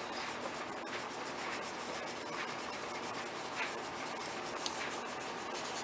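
Colour pencil rubbing back and forth on a workbook page, colouring in a shape: quick, even scratchy strokes.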